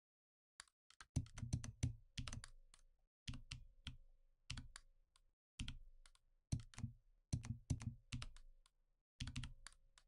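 Faint keystrokes on a computer keyboard, tapped in quick clusters of a few keys about once a second, mixed with mouse clicks.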